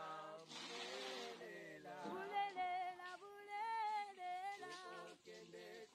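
A voice singing a melody, with long held notes that glide between pitches.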